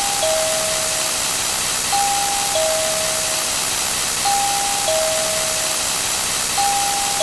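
Looping sound effect: a two-note electronic tone, a high note followed by a slightly lower one, repeating about every two and a quarter seconds over a steady loud hiss.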